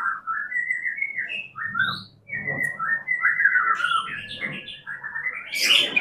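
White-rumped shama (murai batu) singing: a run of varied whistled phrases, broken by a short pause about two seconds in.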